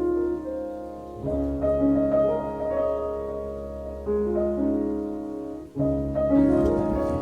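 Background music: a soft piano track, with notes struck in phrases over a low bass.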